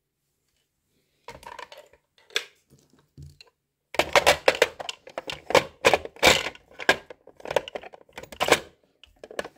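Plastic extension table of a Privileg Nova sewing machine being handled and pushed onto the free arm: scattered plastic scrapes and a knock, then a dense run of sharp plastic clacks from about four seconds in.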